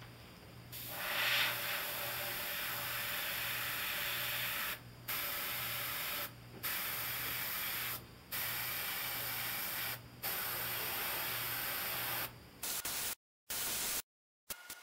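Airbrush spraying paint, a steady hiss of air and paint from the nozzle held close to the model's surface. It starts just under a second in and breaks off briefly every couple of seconds, then cuts in and out near the end.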